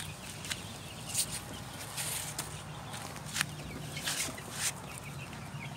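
A plastic tarp and rope being handled around a chick brooder: a series of sharp rustles and scrapes, with young chicks peeping faintly from inside.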